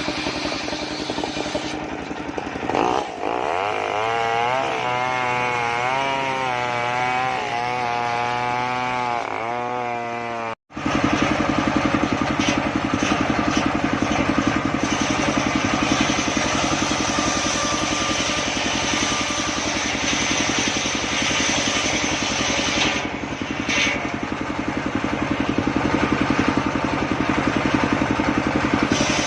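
Engine-driven homemade circular saw running and cutting a large sengon (albizia) log. For the first part the pitch wavers up and down as the blade works through the wood; after a short break about a third of the way in, a steady engine-and-blade drone continues.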